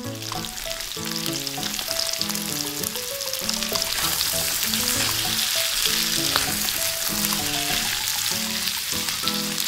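Breaded donuts deep-frying in hot oil in a miniature wok: a steady sizzle and crackle that builds over the first couple of seconds and then holds. A light background melody plays underneath.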